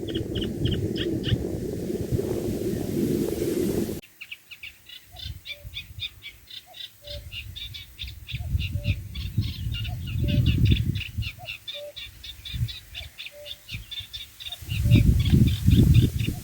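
Eurasian reed warbler singing its fast, continuous chattering song in a reed bed while a common cuckoo repeats its two-note 'cuck-oo' call about once a second. Low rumbles come and go under them, strongest near the end. Before them, in the first four seconds, a different recording plays: regular high chirps over a low steady rumble.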